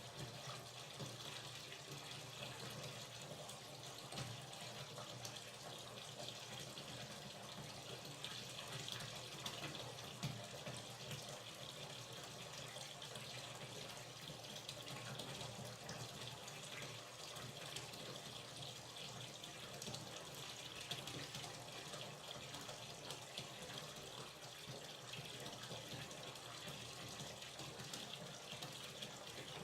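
Hot water running steadily from a tap into a bathtub as it fills, a continuous splashing pour.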